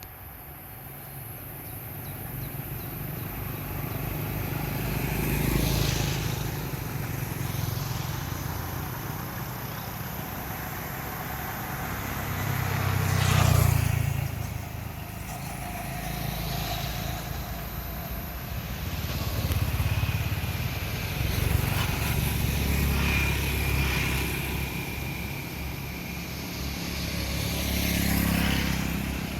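A motor vehicle engine running steadily, growing louder and softer by turns.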